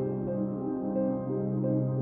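Soft ambient background music: a held low note under gentle notes that change every half second or so.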